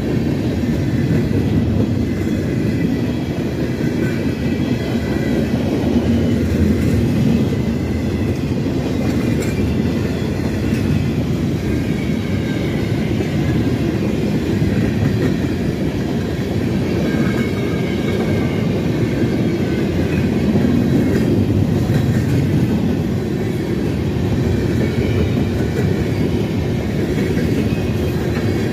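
A train rolling steadily past: a continuous rumble of wheels on rail, with a faint high wheel squeal coming and going.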